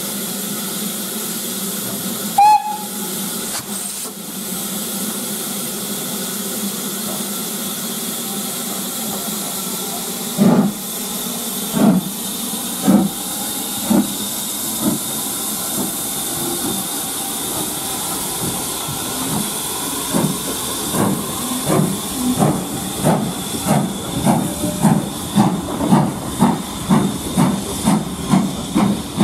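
BR Standard Class 4MT 2-6-0 steam locomotive starting a train: a steady hiss of escaping steam, a brief whistle about two seconds in, then exhaust chuffs that begin about ten seconds in, slow at first and quickening to about two a second as it gathers speed.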